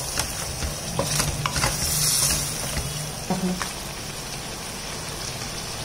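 Masala-coated chicken pieces sizzling in a stainless steel kadai while a wooden spatula stirs them, with a few light knocks and scrapes of the spatula against the pan.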